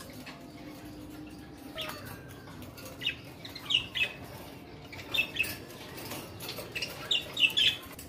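Caged pet birds, budgerigars and a cockatiel, giving short sharp chirps in clusters of two or three, loudest about halfway through and near the end.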